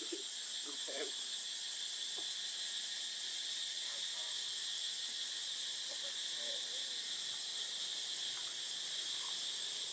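Steady, high-pitched drone of an insect chorus, with a few faint short sounds about a second in and again about six seconds in.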